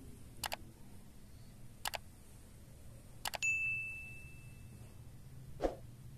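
Mouse-click sound effects, three quick double clicks about a second and a half apart, followed by a single bright ding that rings out for about a second and a half: the notification-bell sound of a subscribe-button animation. A soft thump follows near the end.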